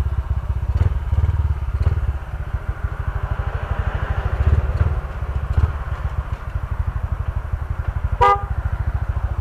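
Small motorcycle engine running at low speed as the bike rolls slowly along, a steady low putter. One short horn beep about eight seconds in.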